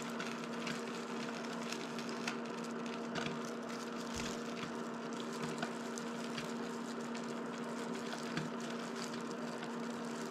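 Electric cooktop humming steadily as it heats a pan of oil, a constant low tone with an even background hiss and a few faint ticks.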